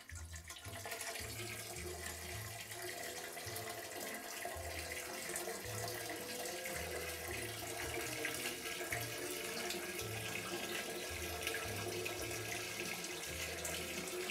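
Steady stream of urine splashing into a toilet bowl, picked up close on a clip-on lavalier microphone.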